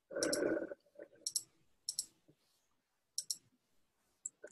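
Faint room noise from open microphones on an online call: a brief rush of noise right at the start, then scattered sharp clicks, several coming in quick pairs.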